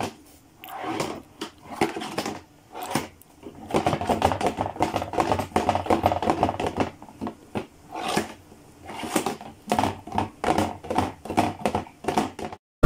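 A closed cardboard box shaken by hand, something loose inside rattling and knocking against its walls in irregular bursts with short pauses between them.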